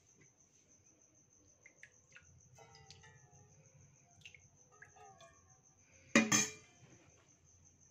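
Stainless steel saucepan and spoon clinking softly, then a loud metal clank with a short ring about six seconds in. A cricket trills steadily in the background.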